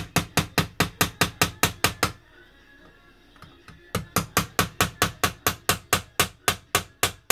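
Rapid light taps of a soft-metal drift on a punch set against the edge of an anti-tamper screw, knocking it round to work it loose. About six or seven taps a second, with a pause of about two seconds partway through.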